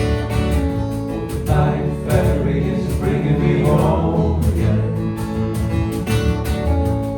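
Live folk music: acoustic guitar playing, with several voices singing.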